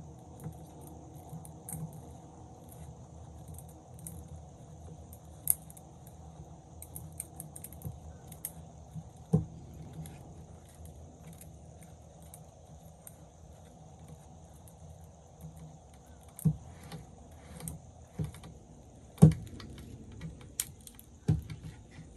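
Scattered metallic clinks and a handful of sharp knocks from tools and gear being handled, the loudest knock about two-thirds of the way through. A steady low hum and a faint high insect-like drone continue underneath.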